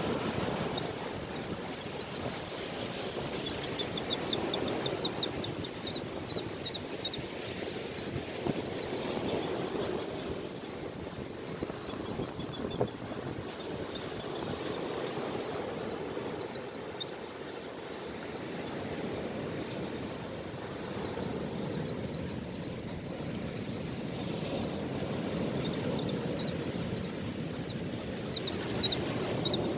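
Surf washing and breaking on the beach, with birds calling in rapid runs of short, high notes that come in several bursts.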